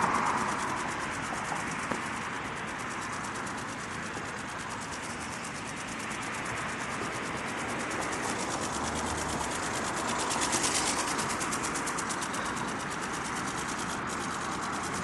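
TX Juice Cyberdactyl RC ornithopter flapping its wings in flight, a fast, steady rhythmic rustling and rasping that swells for a moment about two thirds of the way through.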